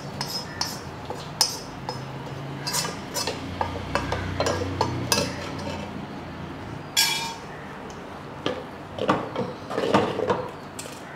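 A wooden spatula scraping and knocking against a metal pan as a spice tempering is scraped out into a clay pot of gruel, with irregular clinks of pan and spatula on the pots. Near the end the spatula stirs in the clay pot.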